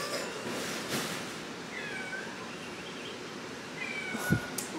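Domestic cat giving two faint, short meows, one about two seconds in and one near the end. A brief soft thump comes just before the end.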